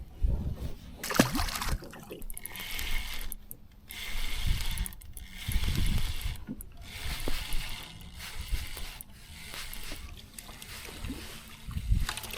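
Fishing tackle being handled in a small boat: a reel cranking, rustling and a few sharp knocks, with some water sounds.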